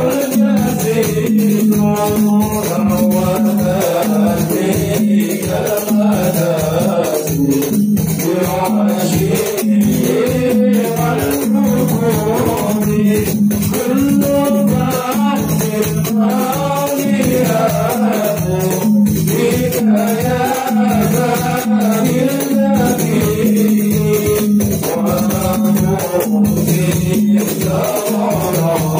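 Men's voices singing an Islamic devotional song (sholawat) together through microphones over a steady, quick hand-percussion beat with a jingling, rattling sound.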